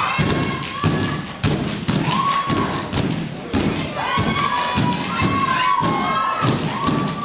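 A steady beat of heavy thumps, about two a second, from a group of stage performers, with drawn-out shouted calls from several voices over it.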